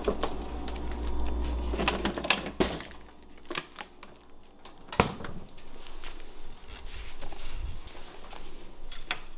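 Scattered knocks, clicks and rustles of household handling: a refrigerator door being closed and a plastic water bottle being picked up, with one sharp knock about five seconds in.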